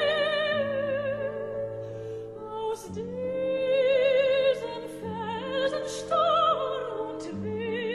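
Operatic singing: a high voice holds long notes with wide vibrato over sustained low accompaniment.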